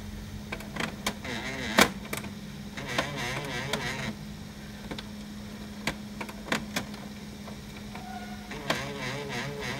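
HP LaserJet Pro M203dn laser printer running with a steady hum, irregular sharp clicks (the loudest about two seconds in) and a warbling whine that comes and goes. This is the abnormal noise of a fault that keeps it from printing.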